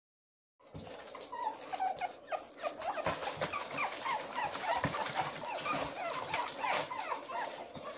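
A litter of pug puppies whining together, many short high cries overlapping, most of them falling in pitch, with scattered clicks among them. It starts just under a second in.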